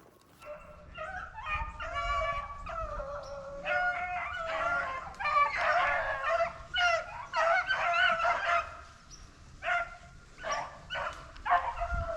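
A pack of rabbit hounds baying and yelping together, several voices overlapping, as they run a rabbit's trail. The chorus starts about half a second in and thins briefly near the end.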